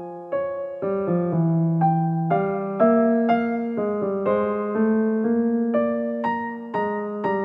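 Background piano music: soft notes struck at a steady pace of about two a second, each fading away.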